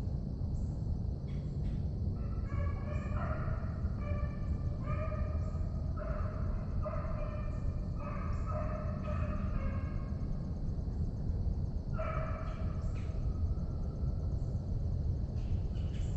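A pack of deer-drive hounds baying as they run a trail, several voices overlapping in long drawn-out bawls that die away near the end, over a steady low rumble.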